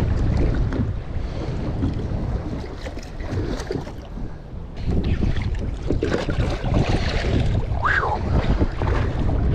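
Wind buffeting the microphone in strong gusts, over the wash of sea water. There is a short high squeak about eight seconds in.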